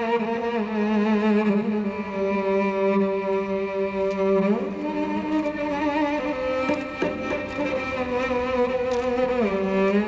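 Dramatic background score of bowed strings holding slow, sustained notes with vibrato. The harmony shifts up to a higher chord about halfway through and falls back near the end.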